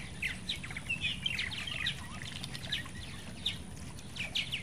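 Purple martins calling: a busy stream of short, downward-sweeping chirps and chatter from several birds.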